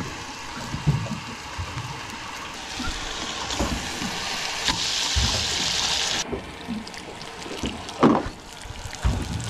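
Venison sausages sizzling in a pot, with scattered knocks of cookware being handled. The sizzle swells in the middle and cuts off abruptly about six seconds in, and a sharp knock comes about eight seconds in.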